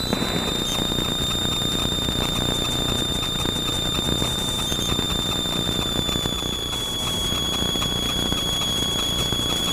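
Steady cabin noise of a Cessna 172 on final approach, its four-cylinder engine running at reduced power with airflow noise, heard through a crackly, distorted recording. A thin, steady high-pitched whine sits over it.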